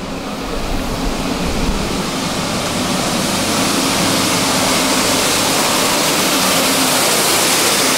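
Compact street-sweeping machine brushing the paving with a rotating cylinder broom: a steady rushing hiss of bristles over the hum of its engine, growing louder over the first few seconds as it comes closer.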